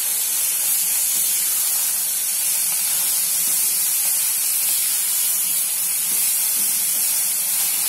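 Green chickpea leaves and onions sizzling in hot oil in an aluminium pot as they are stirred with a wooden spatula: a steady hiss.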